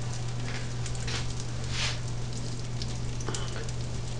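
Hot oil sizzling on a tray of oven-baked butternut squash cubes fresh from a 400°F oven, an even hiss with soft crackles now and then, over a steady low hum.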